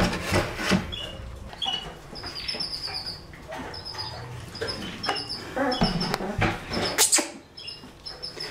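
Young puppies making many short, high-pitched squeaks one after another, with a few knocks and scuffles in between.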